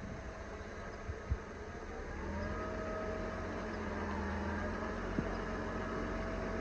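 SUV engine running at low speed as the vehicle moves in close, its steady hum growing louder and clearer about two seconds in. A single sharp click comes a little over a second in.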